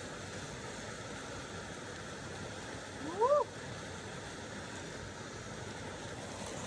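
Steady rush of a mountain creek running through a rocky canyon. About three seconds in, a single short call rises in pitch and then drops off, the loudest sound here.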